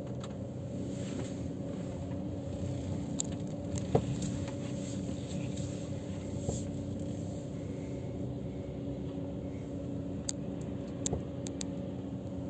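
Steady hum of a concrete pump truck's engine running, with a few sharp clicks: one about four seconds in and a few near the end.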